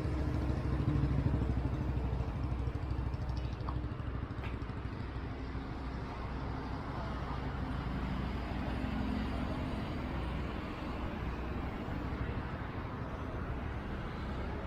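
A motor vehicle running steadily, a low engine hum over road noise, a little louder in the first couple of seconds.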